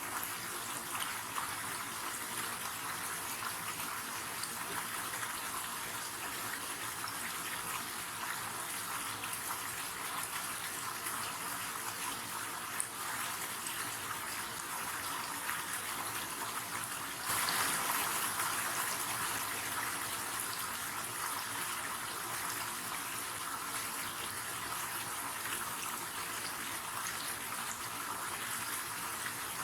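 River water flowing steadily, a continuous rushing hiss. It grows louder suddenly a little past the middle and then settles back over a few seconds.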